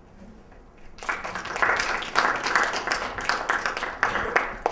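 Audience applauding, starting about a second in and going on as a dense patter of clapping.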